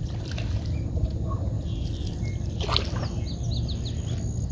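Birds chirping, with one brief louder call about two and a half seconds in, over a steady low rumble.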